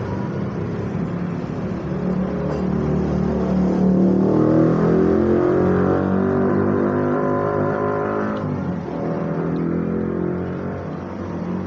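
A motor vehicle engine running close by, growing louder from about four seconds in and dropping back after about eight seconds.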